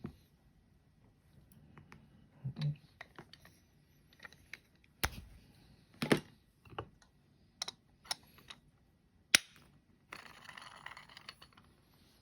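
Clicks and knocks from hand coffee grinders being handled on a table, with several sharp knocks about five, six and nine seconds in and a soft hiss near the end.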